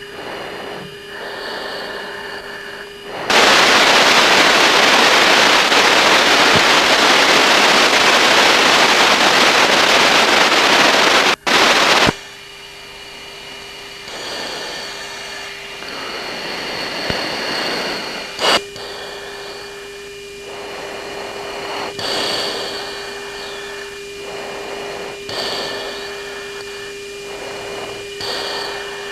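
Cockpit radio and tape audio: a steady hum with a faint constant tone, broken by a loud burst of static hiss lasting about eight seconds that cuts off abruptly.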